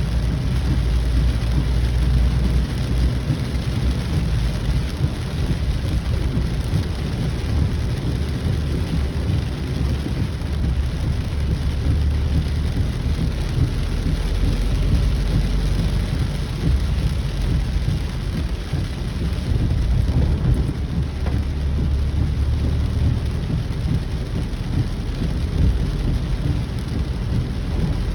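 Heavy rain falling in a steady downpour, with a continuous low rumble underneath.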